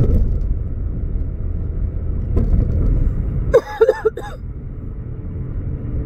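Steady low road and engine rumble inside a moving car's cabin. About three and a half seconds in, a short pitched, wavering sound lasting under a second stands out above it.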